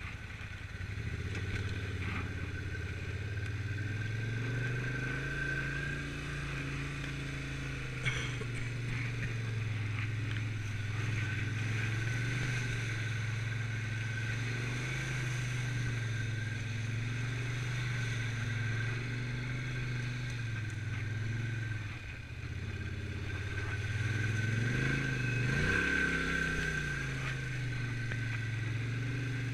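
Quad (ATV) engine running steadily as it is ridden at low speed, its pitch drifting up and down with the throttle and rising in a short rev near the end. A single sharp knock about eight seconds in.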